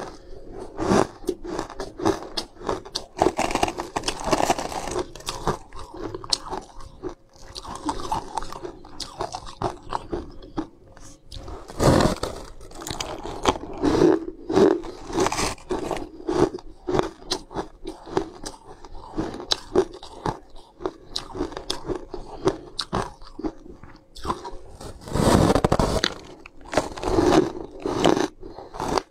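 Close-up biting and chewing of a frosty block of ice: irregular crunches bite after bite, with the loudest crunching about twelve seconds in and again a few seconds before the end.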